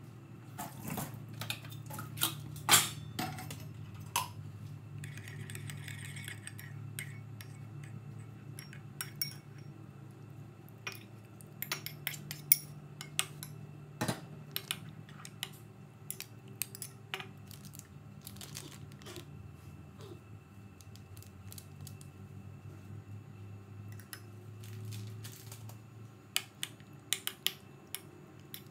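A metal spoon clinking and scraping against a ceramic bowl as cubes of raw beef are stirred into a marinade, in irregular sharp clinks, over a steady low hum.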